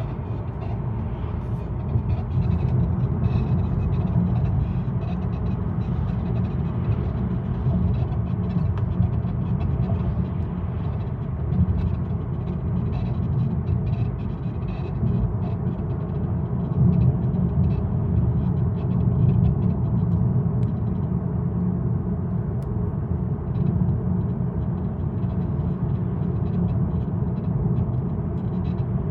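Mercedes-Benz CLA 200 d diesel car being driven, a steady low rumble from engine and road: the noise the owner hears while driving.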